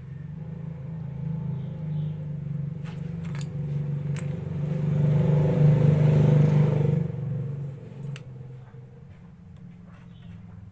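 A motor vehicle passing by, growing louder to a peak about six seconds in and then fading away, over a steady low hum.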